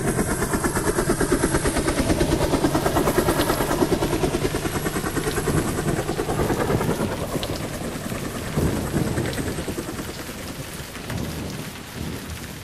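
Rain sound effect: a dense rushing downpour with a fast, regular flutter, fading gradually over the second half.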